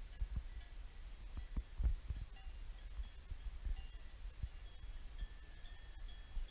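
Irregular low thumps and rumble on the camera's microphone, as from the camera being carried while walking, with a few faint, brief high tones in the background.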